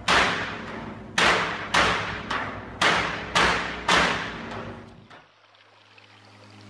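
A series of about six heavy thuds in an uneven rhythm, each ringing out briefly. They stop about five seconds in, leaving a low steady hum.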